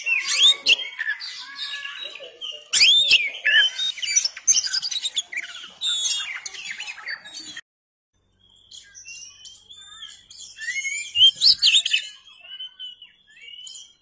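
Oriental magpie-robin (kacer) singing, a rapid, varied string of whistles and chirps. It breaks off just past halfway for about a second, then goes on more thinly with high, repeated notes.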